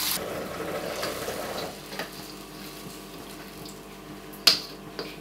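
Water poured into a hot metal wok of frying chili spice paste, cutting the sizzle short almost at once. It is followed by a spatula stirring the now watery sauce, with a few knocks against the wok, the sharpest about four and a half seconds in.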